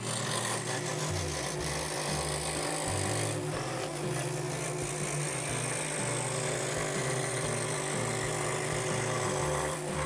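Record Power scroll saw running, its reciprocating blade cutting through 12 mm wood, under background music.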